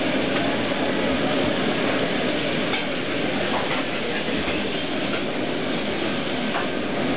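Steady, even kitchen background noise, with a few faint knocks as hand-pulled noodle dough is swung and worked on a steel counter.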